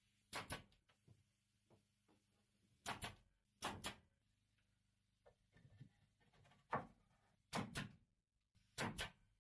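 Nail gun driving nails into pine boards: six sharp shots, most heard as quick double clacks a second or so apart.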